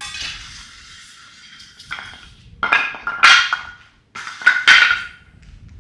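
Metal aircraft tow bar and wheel chocks being handled at the nose wheel on a concrete hangar floor: a scraping rattle, then two bursts of ringing metal clanking, about three and about four and a half seconds in.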